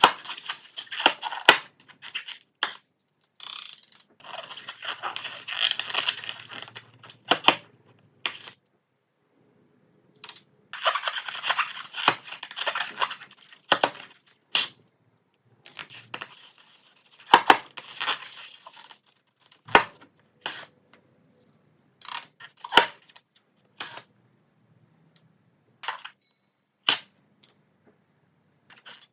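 Slime being mixed and squeezed by hand: stretches of sticky crackling broken by many sharp, clicky pops at irregular intervals.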